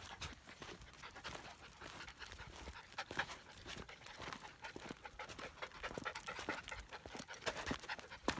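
13-week-old Standard Poodle puppies panting quickly as they trot on leash, with footsteps and small knocks on the path.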